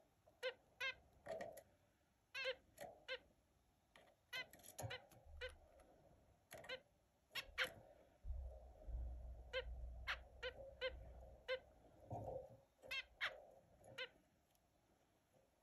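Zebra finches calling: short, nasal beeping calls, some single and some in quick runs of two or three, scattered throughout.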